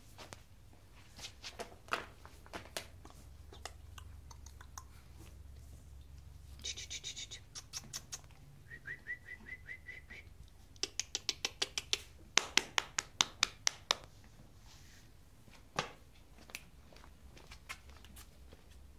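Sharp clicks scattered throughout, with a brief steady high whistle-like tone just before the middle, then a fast run of loud clicks, about four a second, for a few seconds.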